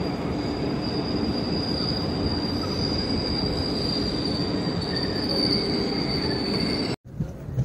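Train wheels squealing in one long, steady high-pitched tone over the rumble of rail cars in a station train shed; it cuts off suddenly near the end.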